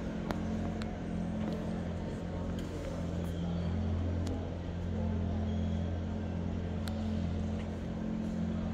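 Steady low hum of a large hall, swelling slightly now and then, with a few light clicks.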